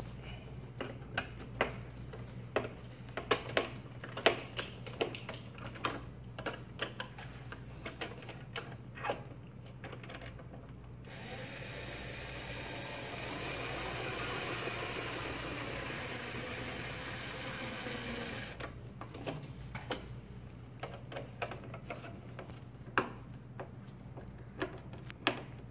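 A cordless drill-driver runs steadily for about seven seconds in the middle, with a thin high whine, driving a screw into the plastic mounting ring. Before and after it come sharp clicks and taps of screws, parts and a hand screwdriver being handled.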